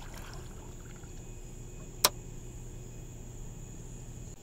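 Small, quiet splash of water as a bass is released by hand over the side of a boat, over a steady high-pitched drone, with one sharp knock about two seconds in.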